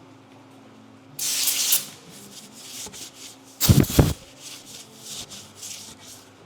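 Workshop handling noises: a short hissing rub about a second in, then two heavy knocks just before four seconds, followed by light scuffs and shuffles, over a faint steady low hum.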